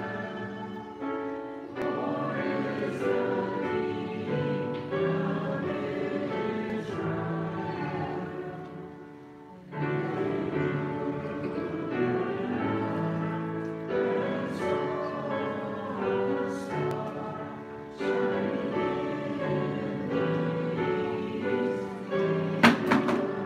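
A group of children singing a song together with accompaniment, in phrases that fall away about eight seconds in and start up again just before ten seconds and again about eighteen seconds in. A sharp knock sounds near the end.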